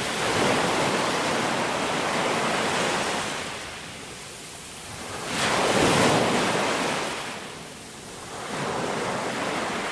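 Ocean surf washing in. The rushing noise swells and ebbs every few seconds, loudest about half a second in and again around six seconds.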